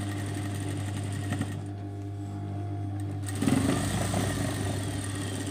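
Industrial sewing machine stitching a seam over a steady low motor hum. The running gets louder and busier for about a second, a little past halfway.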